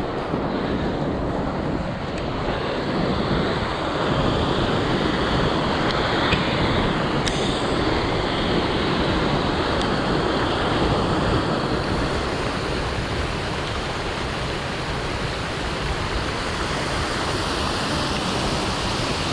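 Rushing water of a rocky hill stream cascading over small falls, a steady rush of noise, with wind buffeting the microphone.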